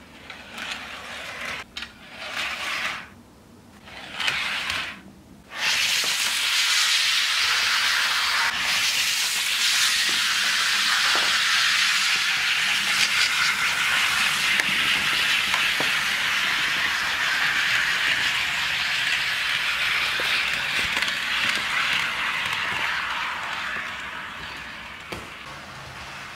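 HO scale model train running on sectional track: a steady hissing rattle of the wheels rolling on the rails, starting about six seconds in and fading near the end. Before it, a few light clicks and knocks as a hopper car is set on the rails by hand.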